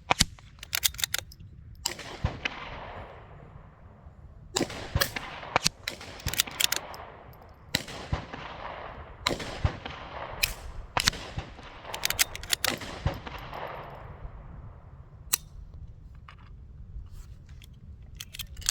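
Repeated single shots from a rimfire Mark II, about a dozen irregularly spaced one to two seconds apart, each crack trailed by a long echo. Wind rumbles on the microphone throughout.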